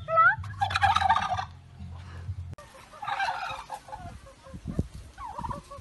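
Domestic turkeys gobbling: one loud rattling gobble about half a second in and another about three seconds in, then a run of short, evenly repeated calls near the end.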